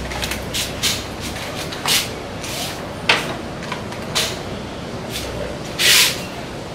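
Irregular handling noises: scattered clicks, knocks and short rustles of objects being picked up and moved, with a sharp click about three seconds in and a louder brief rustle near the end, over a low steady background hum.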